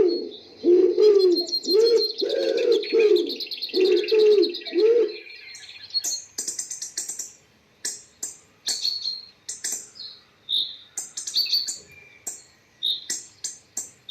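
Small birds chirping and twittering, with a dove or pigeon cooing in a repeated low phrase for the first five seconds. After that only short, sharp, high chirps, several a second.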